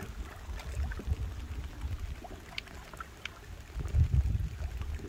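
Shallow water sloshing and trickling, with irregular dull low thumps and a few small clicks, as hands grope through water and mud for fish.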